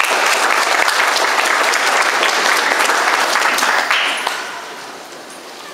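Audience applauding, a dense patter of many hands clapping that fades away about four seconds in.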